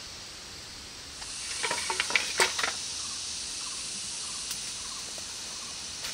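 Steady high-pitched hiss of forest insects, with a few sharp crackles of dry leaves and twigs underfoot about two seconds in.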